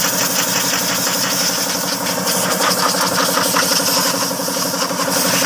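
Shop air compressor running with a steady pulsing hum, under a loud steady hiss of compressed air from a blow hose being used to clean the dirty AC condenser and radiator.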